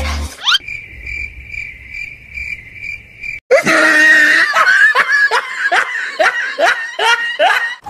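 Crickets chirping in an even, pulsing high trill for about three seconds, then a burst of laughter with quick, repeated falling 'ha's, about three a second.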